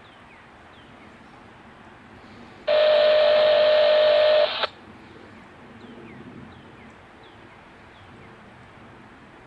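A loud, steady electronic tone, like a buzzer or beep, sounds for about two seconds, starting and cutting off abruptly about three seconds in. A few faint high chirps are heard in the background.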